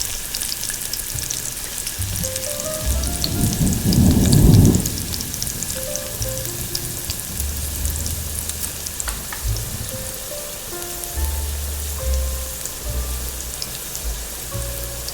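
A steady crackling hiss runs throughout under soft piano music. About four seconds in there is a brief, louder rush of noise.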